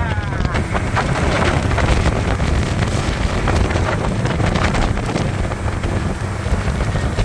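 Wind buffeting the microphone aboard a small boat under way on open water, a loud, even rumble with the hiss of the water around the hull.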